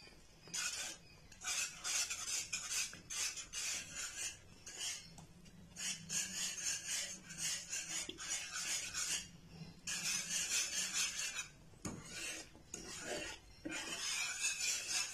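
Metal wire whisk scraping and rasping against a nonstick frying pan as it stirs a thick cheese sauce to melt a cheese slice into it, in quick repeated strokes broken by short pauses.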